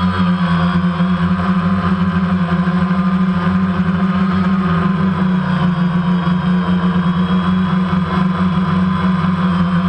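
DJI Phantom quadcopter's four electric motors and propellers in flight, heard through the GoPro mounted on it: a loud, steady buzzing drone with a higher whine that wavers slightly in pitch.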